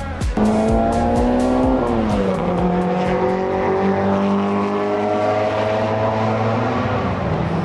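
A racing car's engine at full throttle, its pitch climbing steadily, dropping about two seconds in and climbing again, with another drop near the end.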